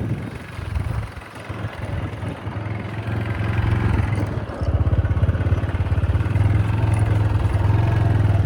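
Motorcycle engine running while being ridden, growing louder over the first few seconds and stepping up to a louder, steadier note about halfway through.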